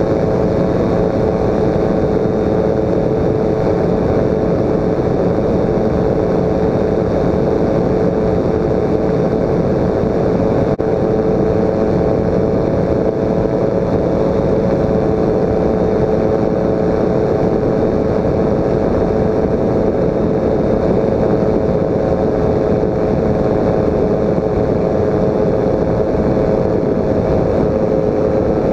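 Microlight trike's engine and pusher propeller running steadily at high power while climbing out after takeoff, with air rushing past the microphone.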